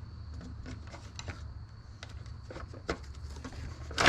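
Scattered light clicks and clinks of metal sockets and hand tools being handled and sorted, with a louder clatter near the end, over a steady low hum.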